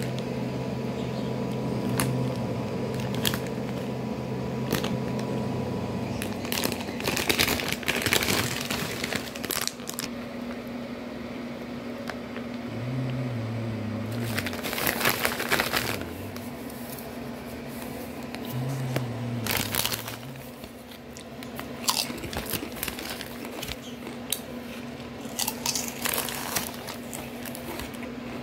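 Foil-lined potato chip bag crinkling and rustling in irregular bursts as it is handled and a hand rummages among the chips, over a steady low hum.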